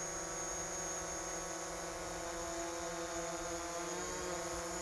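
DJI Mavic Pro quadcopter flying on low-noise propellers, giving a steady high buzz whose pitch shifts slightly about four seconds in. To the owner it sounds hardly quieter than the stock propellers.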